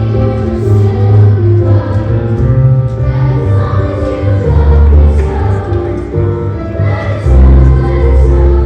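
Music: a choir singing over an instrumental accompaniment with a heavy bass line.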